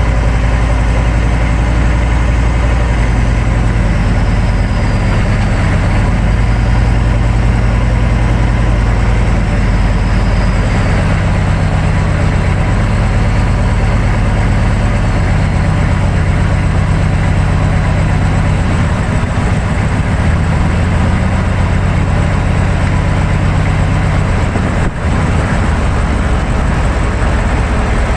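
Running noise of a 1999 GMC 3500 pickup with a 6.5 turbo diesel, heard from under the truck by the rear axle: a loud, steady low drone from engine and drivetrain over tyre and road noise. The drone shifts in pitch a few times.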